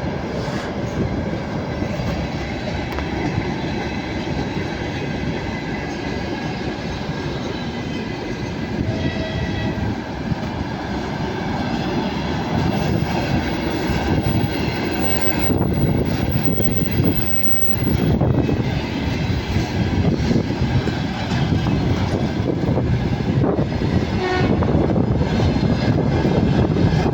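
Freight train rolling past: a steady rumble and clatter of wagon wheels on the rails, growing a little louder in the second half.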